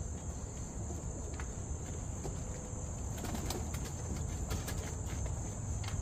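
Steady, high-pitched chorus of insects, crickets, over a low background rumble.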